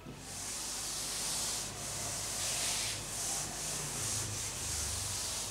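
Chalkboard being wiped with a handheld eraser: a continuous scratchy rubbing that swells and eases with each back-and-forth stroke.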